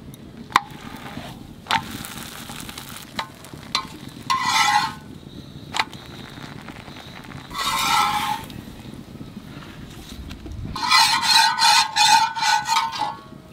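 Wooden rolling pin working paratha dough on a marble slab, with a low rumble and several sharp knocks as the pin and dough are handled. Three louder high, buzzy bursts stand out over it, the longest near the end.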